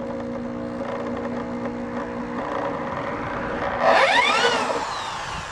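Electric drill turning slowly in reverse with a bit working into a seized, rusted bolt, a steady whine at first. About four seconds in comes a loud, brief whine that rises and then falls in pitch as the bit bites into the bolt.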